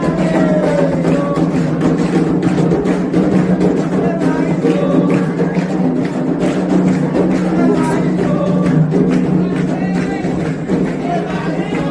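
Percussion music with fast, dense drum strokes and a struck wood-block-like pattern, with voices singing over it.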